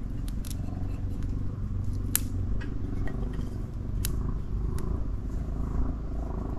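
Dry kindling snapping and crackling at a campfire being lit: a few sharp snaps, the loudest about two and four seconds in, over a steady low rumble.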